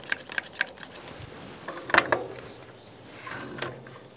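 One-handed bar clamp being squeezed tight on a stack of lumber: a run of small clicks from the trigger mechanism, with one sharper knock of wood or clamp about two seconds in and a few more clicks later.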